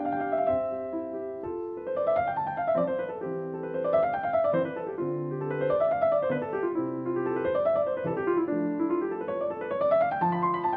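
Background piano music: rolling arpeggios rising and falling about every two seconds.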